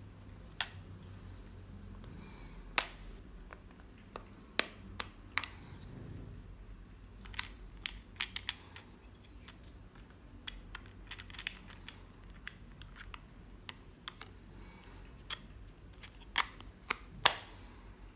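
Scattered sharp plastic clicks and taps from a handheld mini wireless keyboard being handled and turned over, at irregular intervals, with the loudest clicks about three seconds in and near the end.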